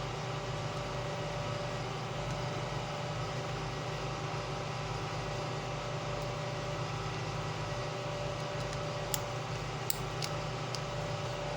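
Steady machine hum in the room, with a few light plastic clicks near the end as the phone's parts are snapped back together.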